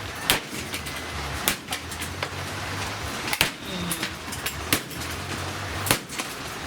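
About five sharp knocks and cracks, one every second or so, from a vacuum cleaner being smashed apart, over a low steady hum.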